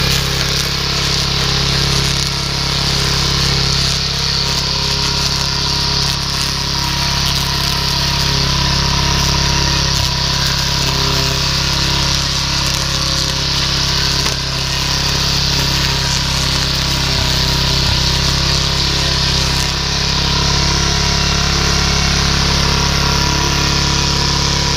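Rotary lawn mower's small engine running steadily under load as its blade cuts down potato tops.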